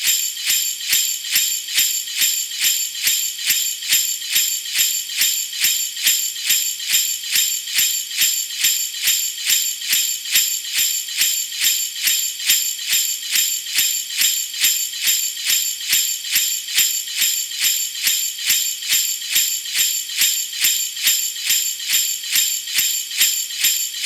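Sleigh bells shaken in a steady rhythm, about two bright jingles a second.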